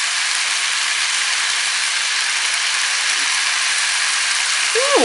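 Kwetiau (flat rice noodles) with vegetables and sauce sizzling steadily in a wok.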